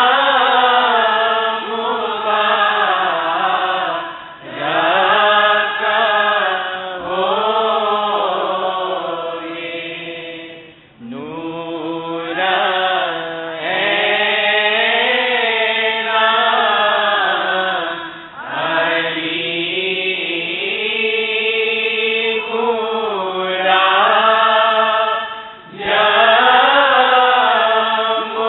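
A voice chanting a devotional prayer in long, melodic phrases, each held and bending in pitch for several seconds before a short break for breath.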